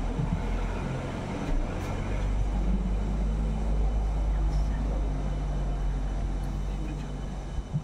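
Low drone of a motor vehicle's engine, growing louder toward the middle and easing off near the end.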